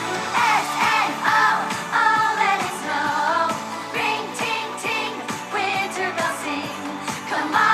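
Pop song with a singer's voice over a steady beat of drums.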